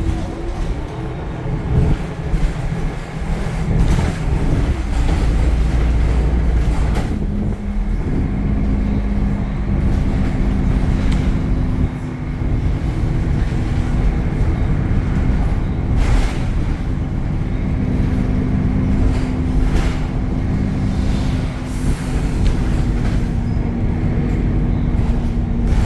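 Temsa Avenue LF city bus with a DAF Euro 5 diesel engine and ZF gearbox running under way: a continuous low rumble, with a steady hum that sets in about seven seconds in and holds, and several short knocks and rattles.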